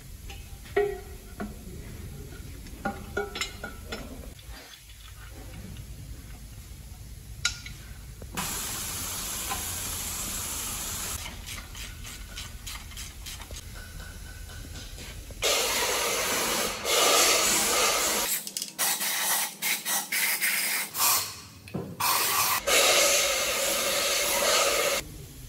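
A hissing jet spray, steady at first, then louder in short stop-start bursts. Small metal clinks come before it.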